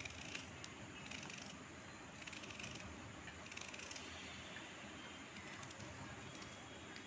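Serrated kitchen knife slicing a raw onion held in the hand: a series of faint, crisp cuts at irregular intervals over a low hiss.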